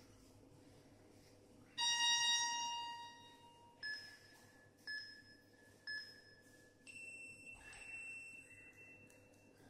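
Tabata interval-timer app on a tablet sounding the end of a work interval: a long tone about two seconds in, three short countdown beeps a second apart, then a longer, higher tone marking the switch to rest.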